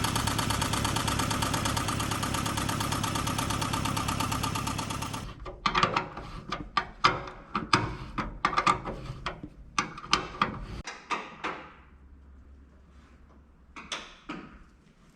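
Nissan Prince Miler engine running with an abnormal knocking noise that resembles a bearing knock, shut off about five seconds in. A run of sharp knocks and clicks follows, with two more near the end.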